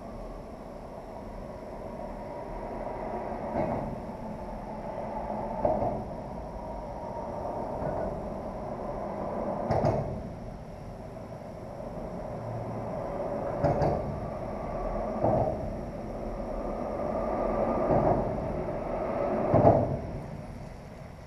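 Traffic crossing the bridge overhead: a steady rumble that swells as each vehicle passes, with a sharp clunk every few seconds.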